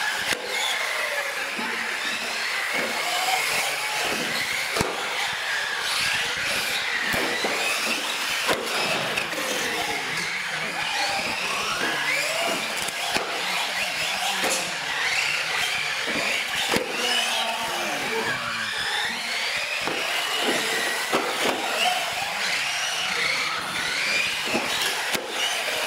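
Several electric RC UTV trucks racing on a concrete floor: overlapping motor whines rising and falling in pitch as they speed up and slow down, with scattered sharp knocks from landings and hits against the ramps.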